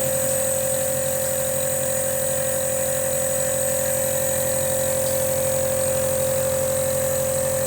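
Compressor nebulizer running steadily, a constant electric motor hum with a high hiss, as it turns Ventolin solution into mist for inhalation.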